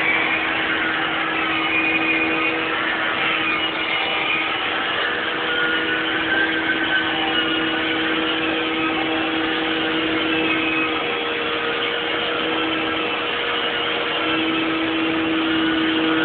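Carpet-cleaning extraction machine running steadily: a constant hum with a wavering higher whine. The lower hum drops out briefly about two-thirds of the way through.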